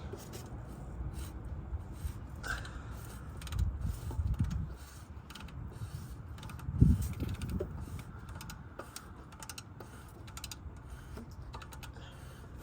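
Irregular metallic clicks and knocks of hand tools at work on a car's oxygen sensor, over a low rumble, with one heavier knock about seven seconds in.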